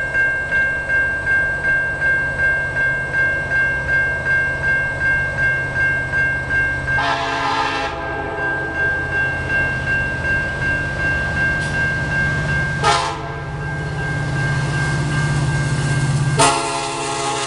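Railroad crossing bell ringing steadily about twice a second, while an approaching diesel freight locomotive blows its air horn for the crossing: a blast of about a second, then a longer one, then another starting near the end. Under it runs the low rumble of the locomotive, growing as it nears.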